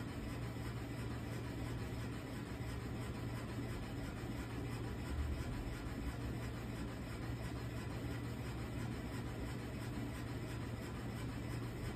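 Steady low hum and hiss of a wall-mounted air conditioner running.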